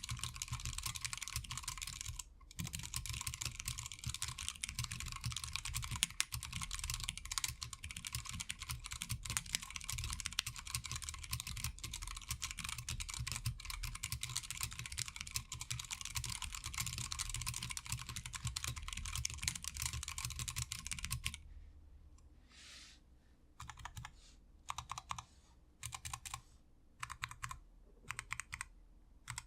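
TADA68 mechanical keyboard with Zealios 65g tactile switches and PBT keycaps being typed on quickly and continuously. About two-thirds of the way through, the fast typing stops and gives way to slower, separate keystrokes, singly and in short clusters.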